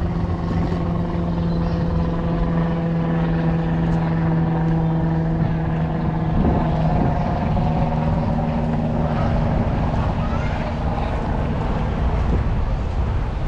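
A vehicle engine running close by, a steady hum that shifts pitch about six and a half seconds in.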